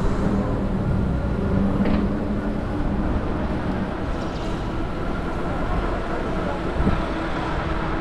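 City street traffic: vehicle engines running close by with a steady hum over a low rumble, a brief knock about two seconds in and a thump about seven seconds in.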